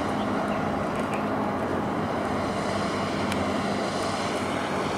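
Ship's diesel engines droning steadily as a large vessel passes, a low even hum under a broad rushing noise.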